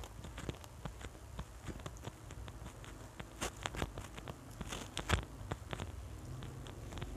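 Close-miked chewing and mouth sounds of a person eating by hand: irregular wet clicks and smacks, louder about three and a half and five seconds in. A low steady hum comes in near the end.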